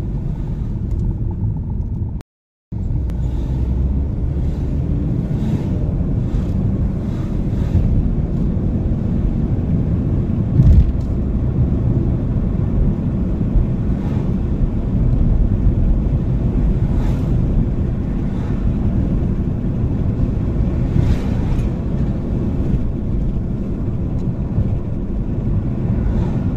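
Car driving, heard from inside the cabin: a steady low rumble of road and engine noise. It breaks off briefly about two seconds in, and there is a single thump about ten seconds in.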